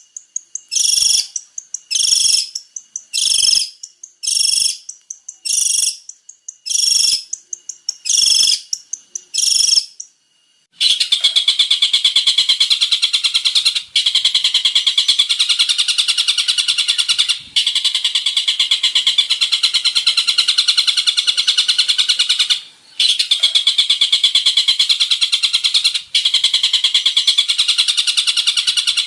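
Long-tailed shrike singing. First comes a run of short, high calls repeated about once a second. After a brief pause about ten seconds in, it breaks into a continuous rapid chattering song with a few short breaks.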